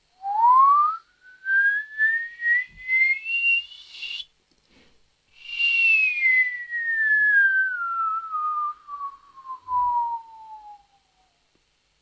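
A man whistling a slow glide: the pitch climbs steadily for about four seconds, breaks off briefly, then slides slowly back down over about six seconds until it stops near the end.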